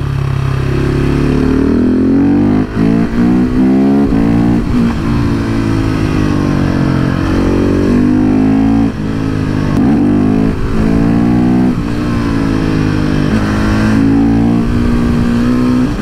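KTM 690 SMC R's single-cylinder four-stroke engine under hard acceleration. The pitch climbs and drops back again and again as the rider rolls on and off the throttle and shifts gears.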